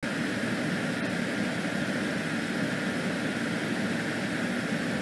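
Steady, even droning hum with a hiss over it, unchanging throughout; a faint tick about a second in.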